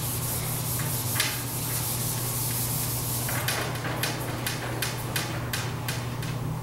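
Marker writing being wiped off a whiteboard with an eraser: a rubbing swish at first, then a run of quick back-and-forth strokes, about three a second, from about halfway through.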